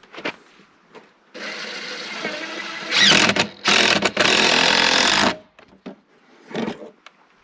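Cordless drill motor running with a steady whine, starting about a second and a half in and growing much louder about three seconds in, with a short break, then stopping about five seconds in. A couple of light knocks come before and after it.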